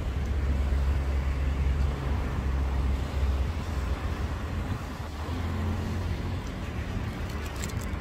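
Road traffic: a motor vehicle's low engine hum passing over steady road noise, a second engine tone coming through a little after five seconds in.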